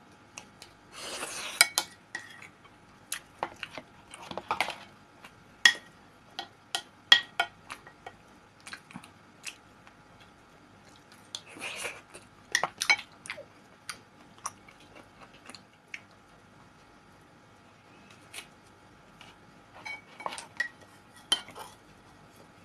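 A fork clicking and scraping on a plate as pelmeni are picked up one at a time, with wet chewing and smacking between the clicks.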